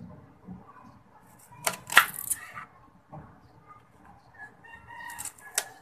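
Kitchen knife cutting through a red onion and knocking on a plastic cutting board: two sharp knocks about two seconds in, the loudest, then a few more near the end.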